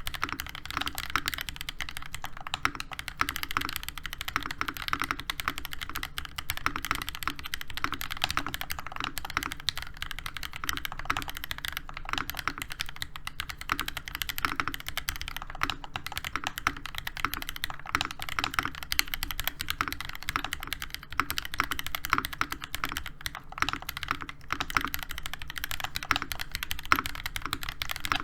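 Continuous fast typing on a NovelKeys NK87 mechanical keyboard: hand-lubed Gateron Oil King linear switches on a brass plate with ABS Cherry-profile keycaps. Keystrokes follow one another rapidly and without pause.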